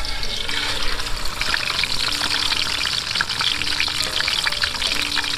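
A whole fish sizzling and crackling in hot oil in a wok over a wood fire, the sizzle swelling about half a second in as the fish settles into the oil.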